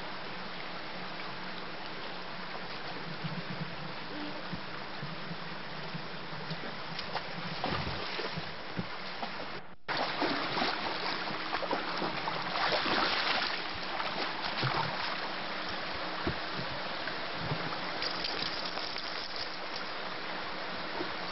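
Shallow rocky stream running steadily over stones. After a brief dropout about ten seconds in, louder irregular splashing follows as a dog wades through the water.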